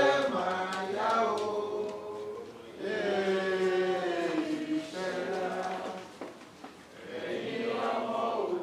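A group of voices chanting a prayer together in unison, in long held notes that glide slowly in pitch, with short pauses between phrases.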